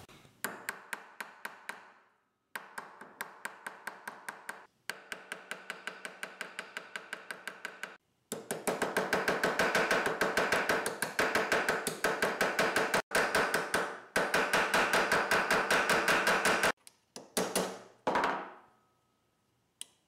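Small hammer tapping rapidly on brass pins against a steel vise anvil, about five or six light metallic taps a second with a ringing note. The pins are being peened over to rivet stainless steel scales onto a pocket knife. The taps come in runs separated by short pauses and grow louder and denser about eight seconds in, ending with a few separate strikes.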